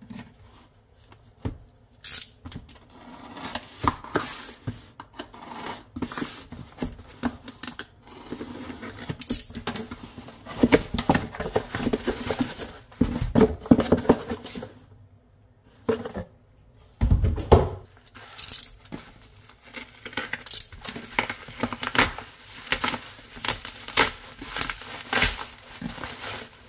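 Delivery package being opened and unwrapped by hand: irregular packaging rustles and handling knocks, with one heavier thump about two-thirds of the way through.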